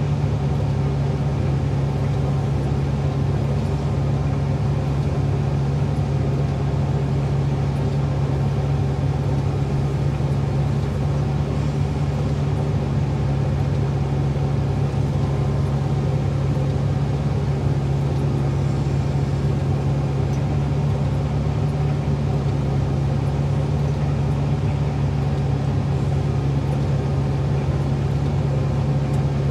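Excavator's diesel engine running at a steady speed, heard from inside the cab as a constant low drone.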